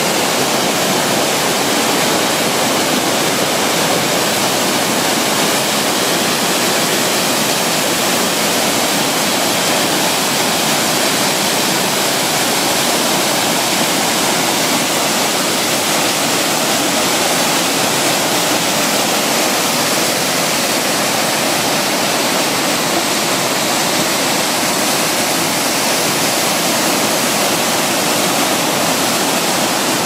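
Chōshi Ōtaki waterfall: a wide curtain of water crashing into its plunge pool, a loud, steady rushing.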